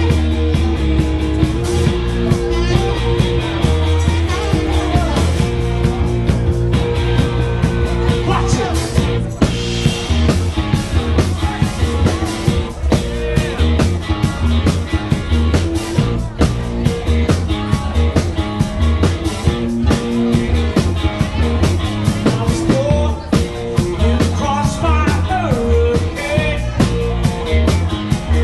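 Live rock band playing: electric guitars and a drum kit keeping a steady beat, with a singer's voice over them.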